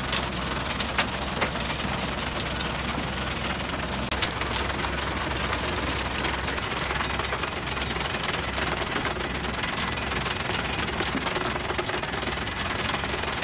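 Screencore Trident 124 heavy-duty scalper screen running under load: a steady engine hum beneath the hiss and rattle of soil clods and stones tumbling over the vibrating screen deck, with a few sharp knocks of stones striking the steel.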